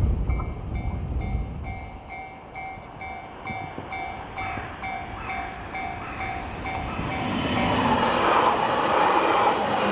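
Japanese level-crossing alarm ringing its repeating ding, about three strokes a second. The rumble of a train that has just passed fades over the first two seconds, and the rushing noise of the next train approaching grows from about seven seconds in.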